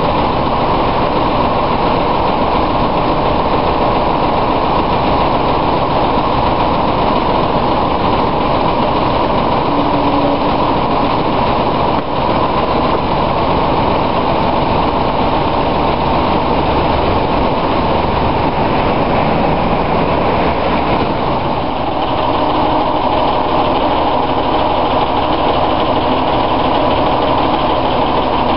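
British Rail Class 07 diesel shunter D2994's Paxman six-cylinder engine running steadily as the locomotive moves along the line, heard close by from the coupled coach. About two-thirds of the way in the sound changes and settles to a steadier, lower note.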